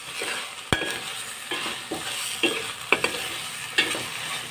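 A metal spoon stirs sautéed alamang (tiny salted shrimp) in a stainless steel pot. It scrapes and clinks against the pan in repeated strokes about every half second to a second, over a light sizzle of the frying. There is a sharp knock about three-quarters of a second in.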